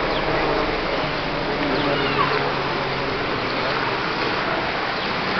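Steady murmur of a crowd of spectators, with a few faint, high, chirping glides over it.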